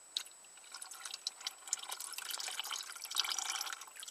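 Gasoline-thinned engine oil pouring in a thin stream from a riding mower engine's drain hole and splashing through the mesh screen into a drain pan, a patter of small irregular splashes and drips.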